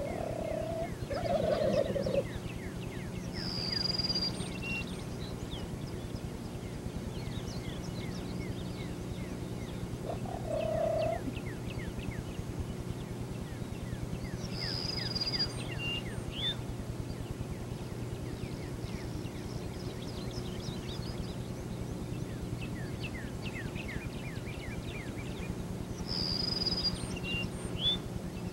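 Wild turkey gobblers gobbling repeatedly, each gobble a quick rattle of falling notes, over a steady low hum.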